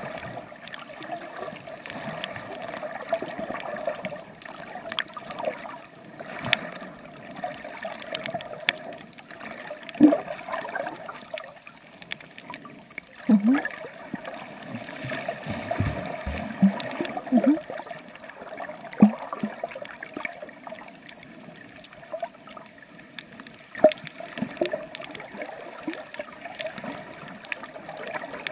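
Sea water sloshing and gurgling around a swimmer's camera, with several sharper bubbly gurgles and splashes.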